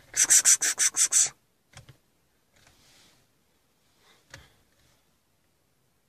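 A person making a quick run of about seven short hissing "ks-ks-ks" calls to a cat, followed by a few faint clicks.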